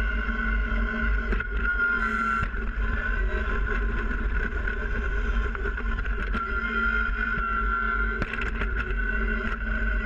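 Kubota BX sub-compact tractor's three-cylinder diesel engine running steadily while working its front loader bucket in snow, with a few short knocks near the end.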